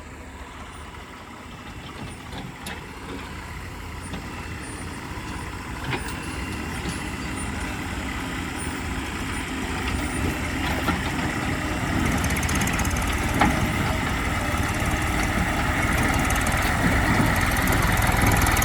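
Heavy diesel engine running, growing steadily louder.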